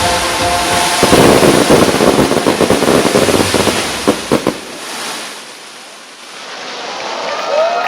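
Fireworks crackling and popping in a dense spray for a few seconds, with a couple of sharper cracks. The crackle then dies down to a low hiss, and the tail of the show music is heard in the first second.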